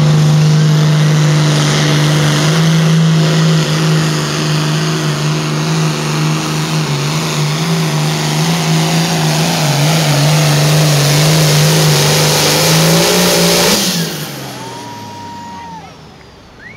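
Hot Farm class pulling tractor's turbocharged diesel engine held at full throttle under load on a pull, very loud and steady, its pitch creeping up near the end. About fourteen seconds in it comes off the throttle and the engine note falls away.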